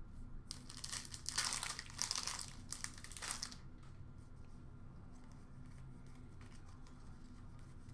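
Hockey trading cards and their plastic packaging being handled: crinkling and rustling for the first three seconds or so, then only faint clicks over a low steady hum.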